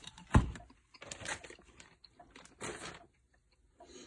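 Anti-static bag crinkling as a motherboard is taken out of it, in short rustling bursts, with a sharp knock about a third of a second in.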